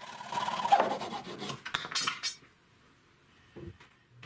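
Hacksaw cutting through a polypropylene pipe fitting, a rough rasping that stops a little over two seconds in; a few faint light clicks follow near the end.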